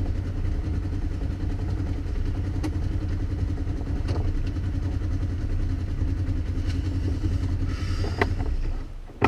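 Off-road side-by-side's engine idling steadily while the vehicle sits still. Near the end the engine sound falls away, followed by a short sharp knock.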